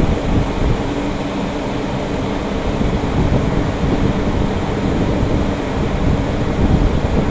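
Steady low rumble of a ship's engines and deck machinery, with a hiss of wind and water over it.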